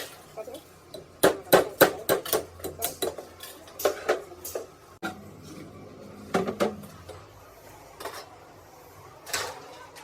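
Metal tools and parts clinking and knocking together in quick, irregular sharp strikes. The strikes come thickly in the first half and more sparsely after that.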